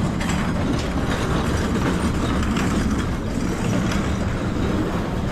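Light-rail train running at a steady pace, heard from inside the car: a continuous low rumble of wheels on track.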